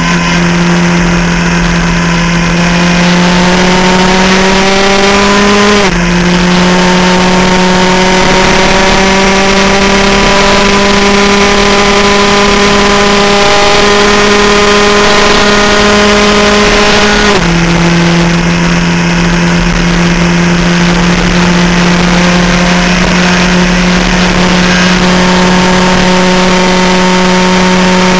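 Skip Barber open-wheel race car's engine, heard loud from the cockpit, pulling through the gears: its note climbs slowly in pitch, drops sharply at an upshift about six seconds in, and again at another about seventeen seconds in.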